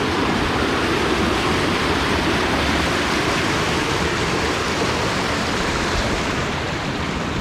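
Creek running high and fast with snowmelt, rushing over rocks in a steady, even wash of white-water noise.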